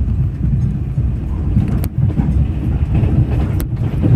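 Train running, a steady low rumble with two sharp clicks about two seconds apart.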